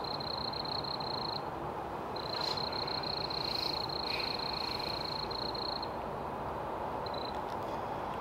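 A cricket trilling: a high, rapidly pulsed trill in runs of a few seconds, breaking off about a second and a half in, resuming, and stopping again near six seconds. A steady low hiss lies underneath.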